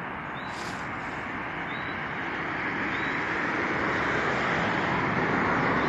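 Road traffic noise: a vehicle approaching, its tyre and engine noise growing steadily louder.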